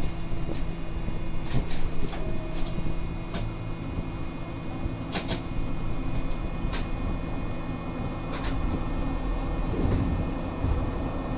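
Subway car interior ambience: a steady low hum from the car's equipment with a few short, sharp clicks scattered through.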